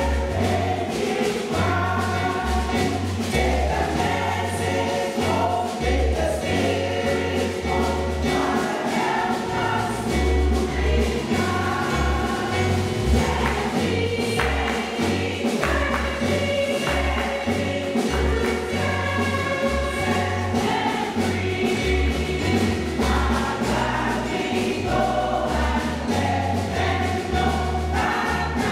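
Church gospel choir of women singing together in harmony, over an accompaniment with a bass line moving beneath the voices.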